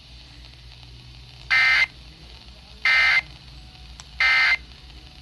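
Emergency Alert System end-of-message data bursts: three short, identical digital buzzes about a second apart, the coded signal that closes the flash flood warning broadcast.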